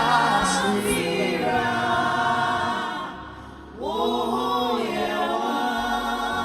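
Choir of voices singing a gospel worship song: a long held phrase fades out about three seconds in, and a new sung phrase comes in about a second later, over low sustained accompaniment.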